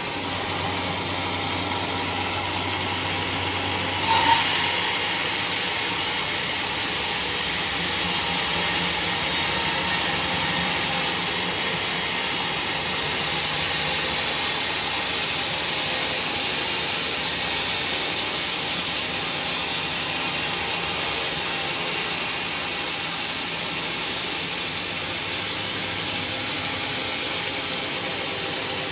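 Woodworking machinery running steadily, with a brief louder burst about four seconds in.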